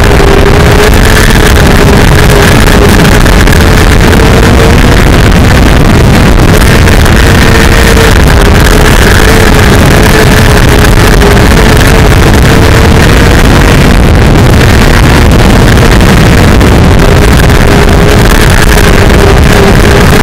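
Mini sprint car engine running hard at high revs through laps of a dirt oval, its pitch wavering slightly with the throttle. The sound is very loud and distorted, overloading the onboard microphone.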